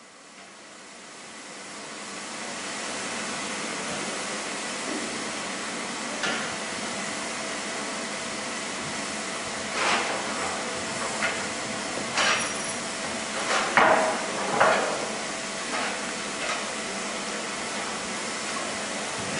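Standing steam locomotive, LNER A2 Pacific No. 60532 Blue Peter, giving a steady hiss of steam that rises in over the first few seconds. In the second half come several sharp knocks.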